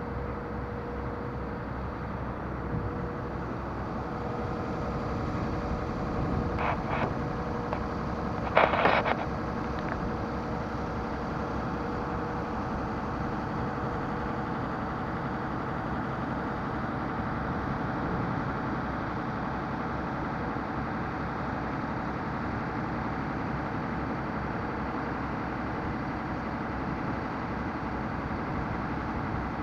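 A ferry's engine running steadily during the river crossing, a continuous hum. Two brief, higher sounds break in about seven and nine seconds in, the second the loudest thing heard.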